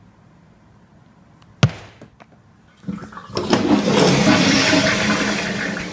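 Toilet flushing: a sharp click about a second and a half in, then water starts rushing about three seconds in and swells to a loud steady gush.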